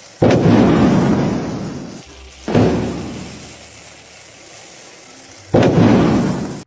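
Three loud thunder-like booms, each starting suddenly and rumbling away over two to three seconds, spaced roughly two and a half to three seconds apart.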